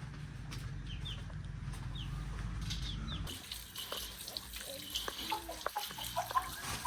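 Chickens calling: short high chirps over a low rumble. About three seconds in the rumble stops and running water takes over, with scattered clicks and clucks.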